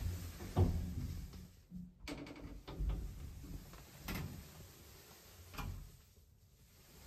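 Faint, scattered knocks and clicks in a small lift cab, about five of them, with a low hum in the first couple of seconds.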